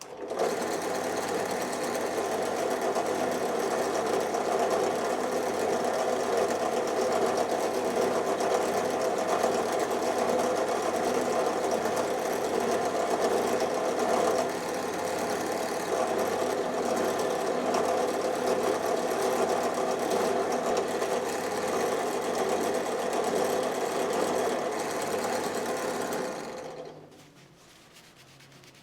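Electric buffing wheel starting up and running steadily with a motor hum, then switched off near the end and spinning down over about a second.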